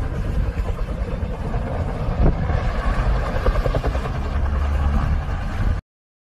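Distant helicopter engine and rotor heard as the helicopter falls out of control, under a heavy wind rumble on a phone microphone. The sound cuts off suddenly near the end.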